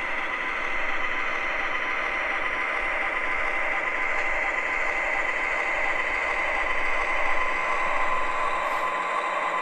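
O scale MTH ES44AC model diesel locomotive and train running on the track: a steady rumble with a constant whine.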